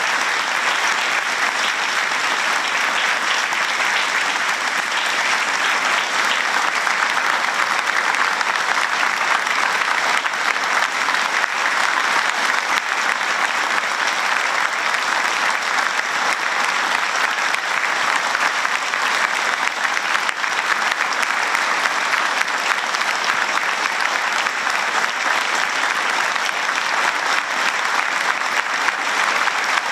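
Steady applause from an audience, an even, sustained clatter of many hands clapping.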